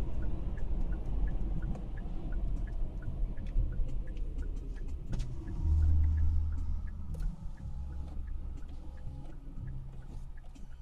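Car slowing down and pulling onto the highway shoulder, heard from inside the cabin: road and engine noise falling in pitch as the car loses speed, with a louder low rumble about six seconds in. A light ticking repeats about three times a second throughout.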